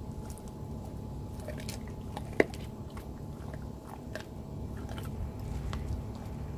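Golden retriever chewing on a raw veal neck bone: irregular wet crunches and cracks of teeth on meat and bone, with one sharp, loud crack about two and a half seconds in.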